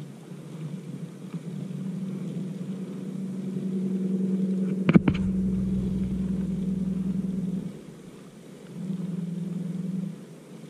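Spinning reel being cranked, a steady low gear whir that stops and starts again near the end. A single sharp knock comes about halfway through.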